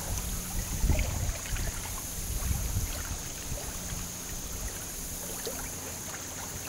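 Low, uneven rumble of wind on the microphone, with a few faint ticks.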